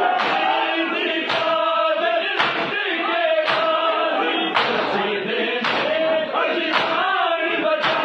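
Crowd of men chanting a noha, a Shia lament, in unison, with massed strikes of hands on bare chests (matam) landing together about once a second.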